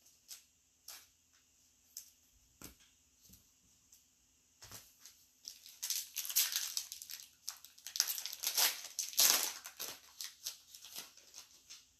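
Trading cards and card packs being handled on a tabletop: a few light taps and clicks, then about four seconds of crinkling, rustling and sliding from about halfway in.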